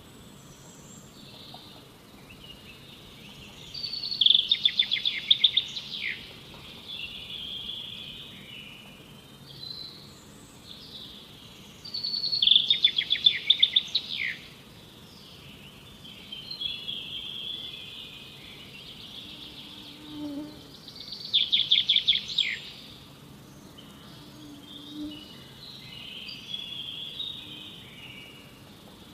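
Forest birdsong: one bird repeats a loud phrase of quick trilled notes ending in a falling note three times, about eight seconds apart, while other birds call more softly in between over a faint steady background hiss.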